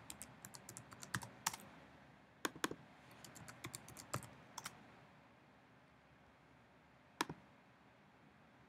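Typing on a computer keyboard: a quick run of light keystrokes, then a few scattered louder key taps, and a single sharper click about seven seconds in.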